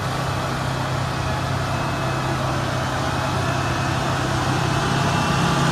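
Steady engine sound of a heavy vehicle like a bulldozer idling, cutting in abruptly with a constant low hum and growing slightly louder toward the end.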